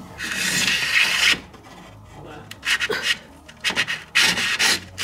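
Scraping and rubbing against wood as a wire-fishing rod is worked through a joist cavity: one long scrape lasting about a second at the start, then a string of shorter scrapes in the second half.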